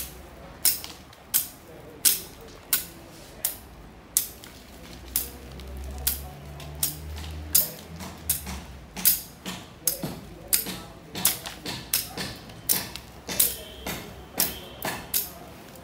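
Curved cutlass swung low through short grass, each stroke a sharp swish and scrape against the ground, coming in a steady rhythm about every 0.7 s and getting quicker in the second half.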